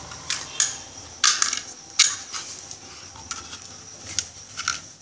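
Irregular clicks and light knocks of small parts being handled in a small wooden box: an electronic fan regulator board and screws being set in place by hand. There are about eight sharp clicks, the loudest about a second in and again at two seconds.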